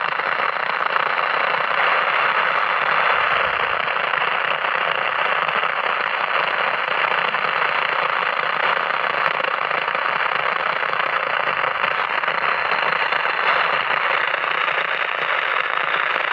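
Transistor radio under repair giving a steady static hiss from its speaker.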